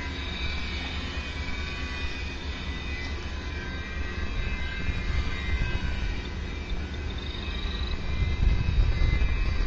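Twin propellers and motors of a homemade foam-board RC flying disk buzzing overhead: a steady high whine of several tones that drift slightly in pitch, over a low rumble that grows louder near the end.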